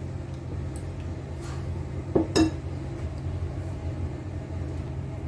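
A spoon clinking against a cooking pot while cream is stirred into cold milk, with two sharp clinks close together about two seconds in and a few fainter taps. A steady low hum runs underneath.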